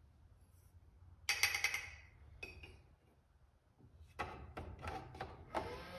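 Reloading powder handling. About a second in comes a quick rattling pour of a weighed powder charge through a funnel into a brass case. Later the scale pan clinks against the electronic powder dispenser, and near the end the dispenser's motor starts a steady whirring to throw the next charge.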